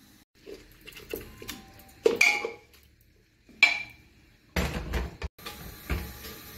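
Aluminium pressure cooker being opened and handled: a few sharp metal clinks and knocks of the lid and a utensil against the pot, with a heavier clatter about halfway through.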